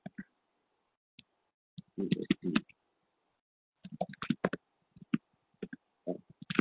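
Bursts of typing on a computer keyboard, a quick run of keystrokes about two seconds in, another about four seconds in and a third near the end, heard through a video-call microphone that cuts out completely between them.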